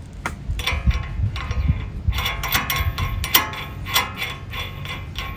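A hand wrench turning the hub nut onto the new wheel hub bearing assembly gives a series of irregular metallic clicks, like a ratchet working.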